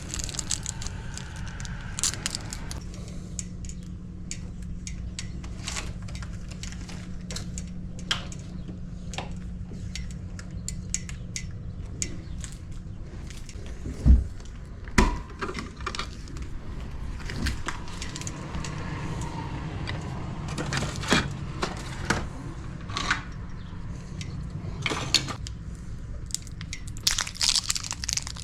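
Scattered light clicks and knocks of hand work on small hard hardware, with two louder knocks about a second apart halfway through.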